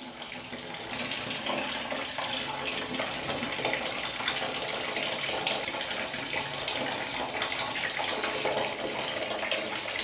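Water draining out of an electric geyser (storage water heater) during a flush, pouring in a steady stream from an open pipe fitting. The flow gets a little louder about a second in, then holds steady.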